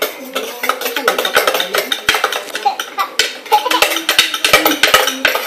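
Metal spoons clinking and scraping against a plate of rice in quick, irregular clicks.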